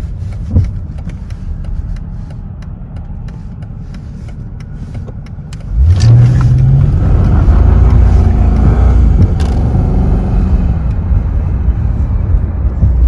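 Mercedes-Benz E55 AMG's 5.4-litre V8 running at light load, then about six seconds in the throttle opens and the engine gets suddenly louder, pulling hard under acceleration before easing near the end.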